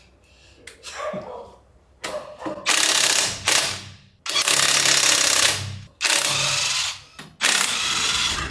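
Impact wrench hammering in four bursts of one to two seconds each, starting about two and a half seconds in.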